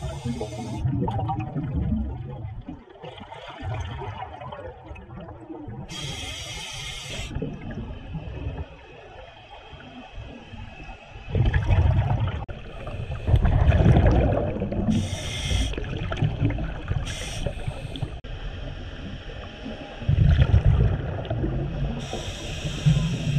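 Scuba diver breathing through a regulator underwater: short hissing inhalations alternate with louder gurgling rushes of exhaled bubbles, repeating several times.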